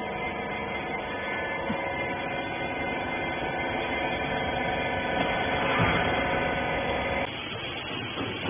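Hydraulic baler's electric motor and pump running with a steady hum, cutting off suddenly about seven seconds in.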